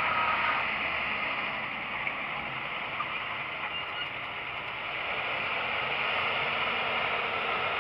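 John Deere 7530's six-cylinder diesel engine running as the tractor works the field with a seed drill. It is a steady, noisy drone that grows louder about five seconds in as the tractor approaches.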